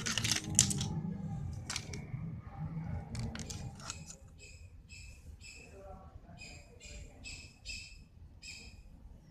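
Clicks and knocks of the plastic laptop base being handled and moved. After about four seconds these give way to a small bird chirping faintly, about twice a second, in a steady series.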